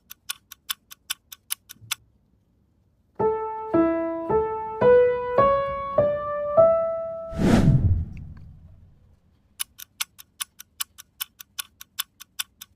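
A fast run of metronome clicks, then a piano-toned keyboard playing a seven-note melody in A major, A–E–A–B–C♯–D–E, mostly rising stepwise and ending on a held E. A single dull thump follows the last note, and the clicks start again near the end.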